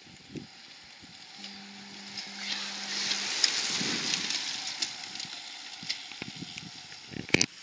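A small bunch of racing bicycles passing close by: the hiss of tyres and whir of chains and freewheels swells to a peak about four seconds in and fades as the riders move away. A couple of sharp knocks come near the end.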